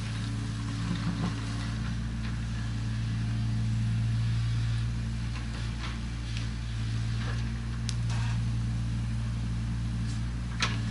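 Diesel engine of heavy construction machinery running steadily at a constant pitch, with a few light knocks and one sharper clack near the end.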